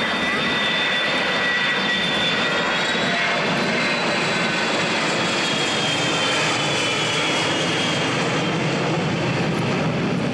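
Boeing E-3 Sentry AWACS flying past and banking, its four jet engines giving a steady rushing noise with a high whine that drifts slowly in pitch.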